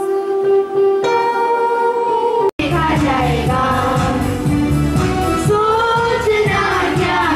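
Yamaha electronic keyboard playing held notes that step up once, then, after a sudden cut about two and a half seconds in, a group of children singing into microphones over music with a steady beat.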